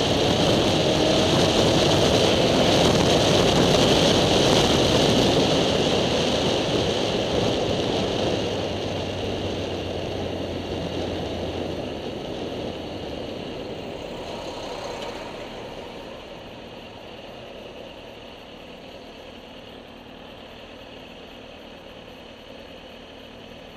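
Wind and road noise from a moving vehicle, loud at first and fading over about ten seconds as the vehicle slows to a stop in traffic, then a quieter steady rumble. A low hum runs for a few seconds in the middle.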